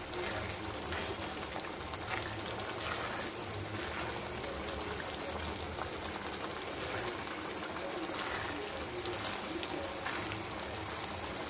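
Lauki and chana dal curry bubbling in a wok on low heat while a spatula stirs through it: a steady wet hiss with small scattered pops and scrapes.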